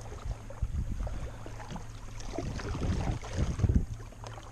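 Kayak being paddled: irregular paddle splashes and low thumps, heaviest about three and a half seconds in, over a steady low rumble.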